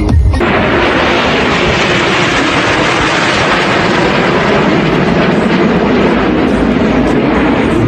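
Steady, loud jet engine noise from a formation of aerobatic jets flying past, coming in as music cuts off about half a second in.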